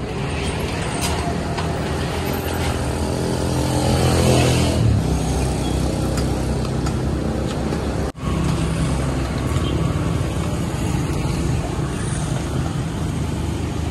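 Engine of a nearby motor vehicle running steadily, with a vehicle passing about four seconds in, its pitch falling as it goes by. The sound drops out for an instant about eight seconds in, then the steady engine hum resumes.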